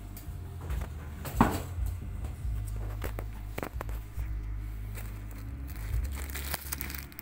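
Clear plastic bag rustling and crinkling as it is handled, with scattered crackles and a sharper crackle about a second and a half in, over a low steady hum.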